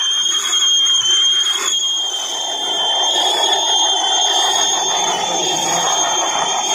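Small electric motors and drivetrains of 1:10 scale RC crawler trucks whirring as they drive. A steady high-pitched whine runs throughout, and the whirring grows a little louder about halfway through.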